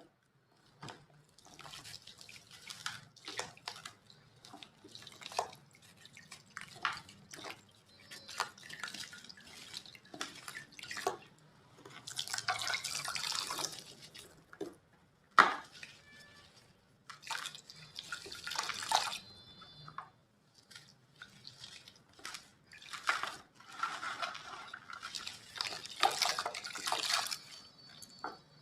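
Chunks of gritty white cement crumbled by hand, giving irregular crisp, crackly crunching in short flurries. The crunching is densest about halfway through and again near the end.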